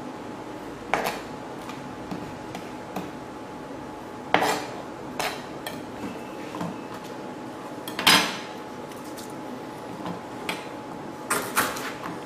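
Scattered knocks and clatters of a kitchen knife and small bowls on a plastic cutting board and wooden counter as chopped cilantro is gathered into a bowl and the board is cleared. About seven separate knocks, the loudest a little after the middle and a quick pair near the end, over a faint steady hum.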